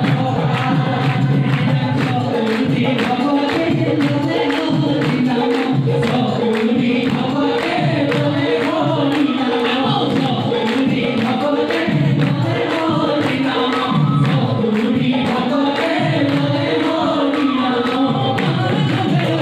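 Dihanaam, Assamese devotional group singing: a man leads into a microphone and a group of voices sings with him over a steady percussive beat.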